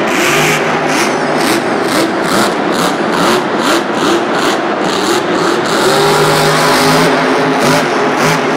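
Grave Digger monster truck's supercharged V8 engine revving hard and changing pitch as the truck drives and turns. The revs climb about six seconds in as it accelerates toward a jump.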